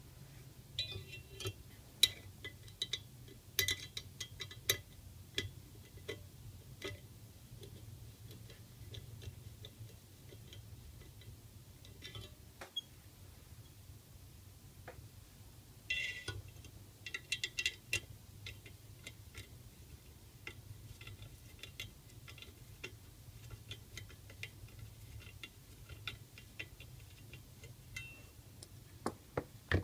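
Scattered small metallic clicks and ticks, bunched in a few clusters, from a screwdriver turning the small screws and nuts that fix sheet-metal brackets onto a Stirling engine kit's metal base. A low steady hum lies under them.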